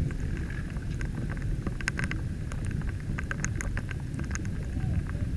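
Light rain: irregular ticks of drops landing close to the microphone, over a steady low rumble from the inflatable boat running through wind.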